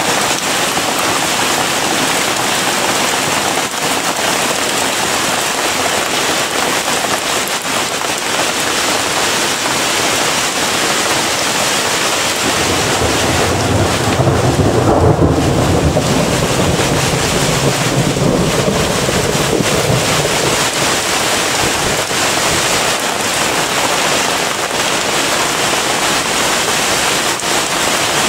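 Heavy hail and rain falling: a dense, steady hiss peppered with sharp clicks of hailstones striking a car roof. A low rumble of thunder rolls in about halfway through and lasts several seconds.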